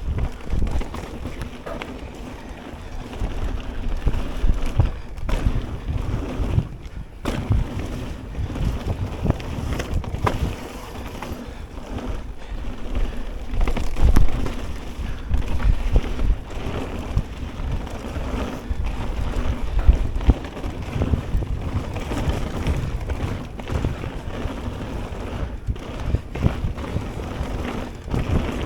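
Ragley BigWig hardtail mountain bike riding a dirt trail: wind buffeting the action camera's microphone and tyres rumbling over the ground, with frequent short knocks and rattles from the bike over roots and rocks.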